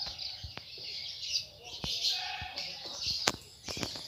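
Small birds chirping steadily in the background, with a few sharp knocks, the loudest about three seconds in and a quick pair just after.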